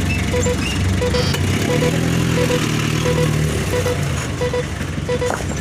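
Steady heavy-vehicle engine rumble with a short electronic beep repeating about every three-quarters of a second, like a truck's warning beeper. A deeper engine tone swells in the middle.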